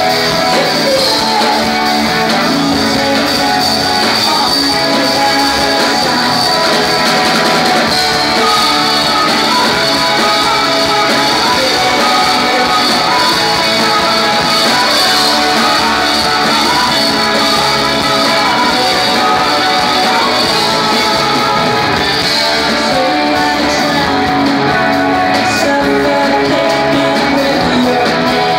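A rock band playing live, guitars to the fore, loud and even throughout.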